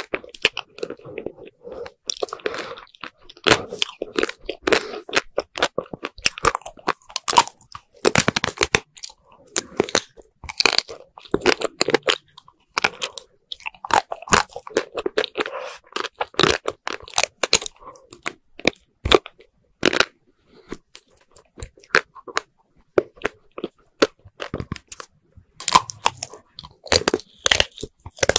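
Biting and chewing chocolate-coated ice cream bars on sticks: the hard frozen coating cracks and crunches in quick runs of crisp crackles, with softer chewing sounds between bites.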